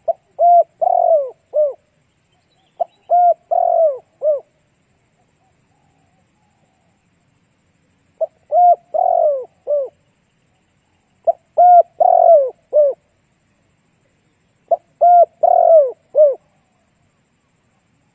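Spotted dove cooing: five phrases of four or five hooting notes each, the first two close together, then a pause of about four seconds before three more.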